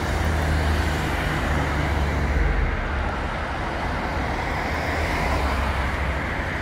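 Steady city street traffic noise: an even wash of road noise over the low hum of vehicle engines close by.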